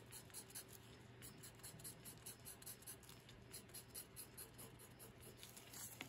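Wooden barbecue skewer scratching short strokes into an oil pastel drawing on paper: faint, quick scratching, several strokes a second.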